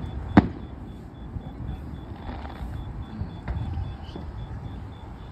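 Aerial fireworks exploding: one sharp, loud bang about half a second in, then fainter pops about three and a half seconds in, over a steady low rumble.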